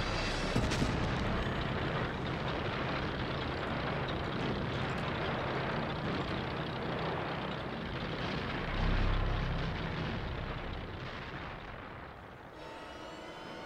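Tank running and moving: a steady, heavy engine rumble with dense noise over it, growing louder about nine seconds in and dropping away near the end.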